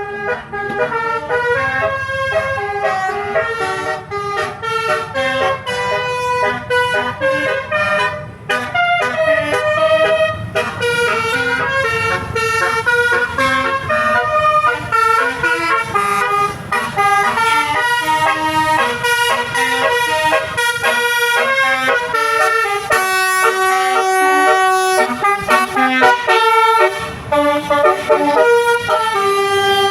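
Basuri 'telolet' musical bus horn playing a tune: several horn tones sounding together, stepping rapidly from note to note without a break.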